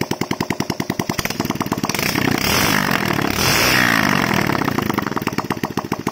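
Chinese-made Honda Dream-type single-cylinder four-stroke motorcycle engine running freely after starting at a touch, idling with a rapid, even popping beat. A little past a second in, it revs up, holds the higher speed for about three seconds, then drops back to idle.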